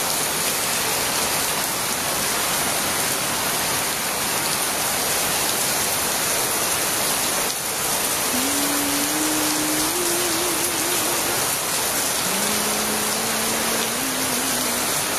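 Heavy rain falling in a steady, dense hiss. In the second half, a voice faintly hums a few low held notes that step up in pitch.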